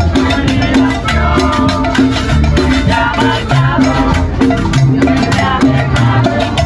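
A live band playing salsa-style Latin dance music, with a steady beat of drums and percussion over a moving upright-bass line.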